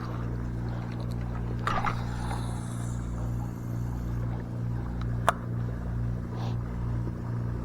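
A steady low mechanical hum made of a few constant low tones, with a faint knock about a second and a half in and a sharp tick about five seconds in.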